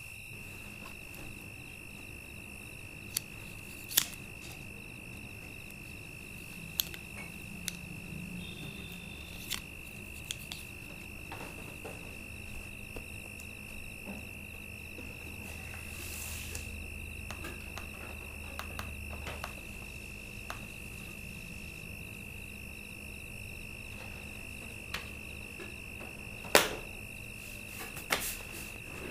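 Crickets trilling in one steady high unbroken note: night-time ambience. A few sharp clicks and knocks stand out, the loudest about four seconds in and near the end.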